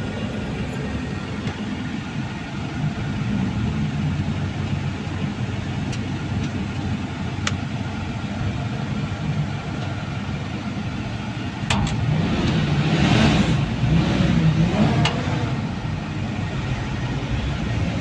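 Heavy diesel engine running steadily, revving up and growing louder about twelve seconds in, with a few sharp clicks.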